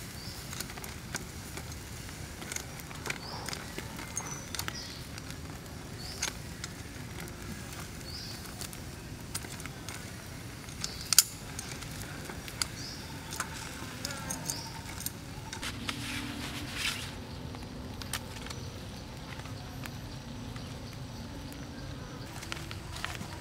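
Metal tongs clicking and scraping against a wire grill rack and crab shells as crabs are turned over charcoal, in scattered sharp clicks, one louder about eleven seconds in. Faint high chirps recur in the background.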